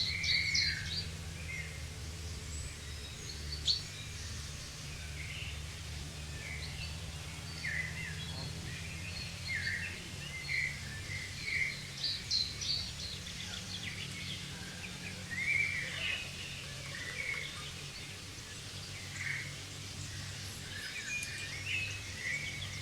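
Several birds chirping in short, scattered calls over a steady low hum.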